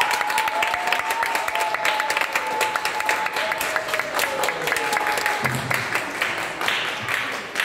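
Audience applauding, many hands clapping steadily. One or two thin held tones sound over the clapping, one sliding slowly down in pitch, and they stop about five seconds in.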